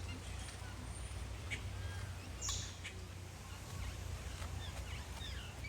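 Birds chirping and calling here and there over a steady low rumble, with a brief hiss about two and a half seconds in.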